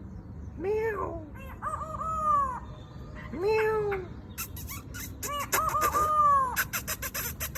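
Black-throated laughingthrush mimicking a rooster's crow: about four drawn-out phrases, each rising then falling. Sharp high chips are mixed in during the second half.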